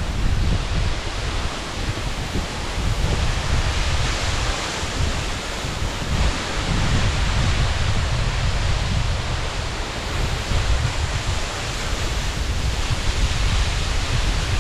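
Steady rushing roar of a large waterfall, with wind buffeting the microphone in uneven low gusts.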